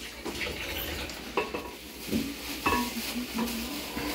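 Ground meat sizzling in a hot pan while it is stirred, with a spoon scraping and clinking against the pan three times.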